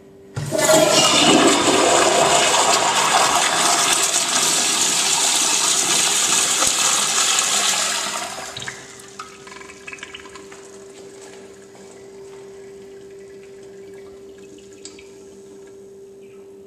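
Crane toilet flushing: a sudden rush of water about half a second in stays loud for about eight seconds, then dies down to a quieter trickle as the bowl settles.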